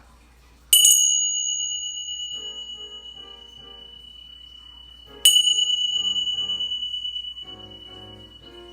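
A bell struck twice, about four and a half seconds apart, each strike ringing out in a single high, clear tone that slowly fades. Soft background music plays underneath.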